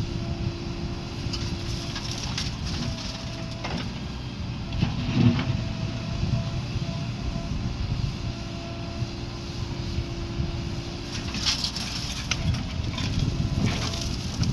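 Heavy diesel machinery running steadily at a mud-loading site, with scattered knocks and clanks; the loudest is about five seconds in, and a cluster comes near the end.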